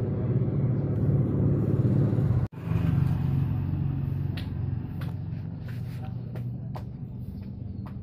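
Steady low rumble of a motor vehicle's engine running, broken by a sudden brief dropout about two and a half seconds in. In the second half, short sharp sounds come about twice a second over the rumble.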